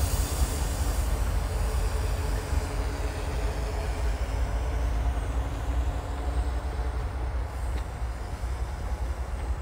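Two V60 diesel shunting locomotives running together as they pull away, a steady engine drone that gradually fades with distance.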